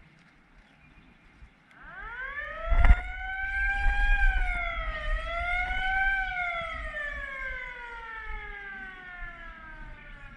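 A fire siren winds up in pitch about two seconds in, dips and rises once, then slowly falls away. A single sharp thump comes about three seconds in, as the siren climbs.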